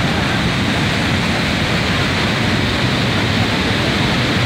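Muddy floodwater rushing down a rocky channel: a steady, loud roar of churning water.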